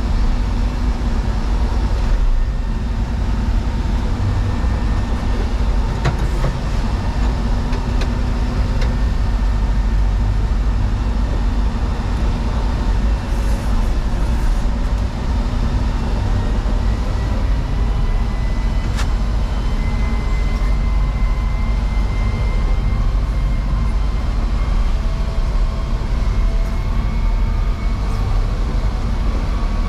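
Diesel engine of a loader running steadily as it is driven.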